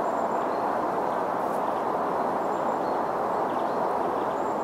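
A steady rushing noise at a constant level, with a few faint, short, high bird chirps over it.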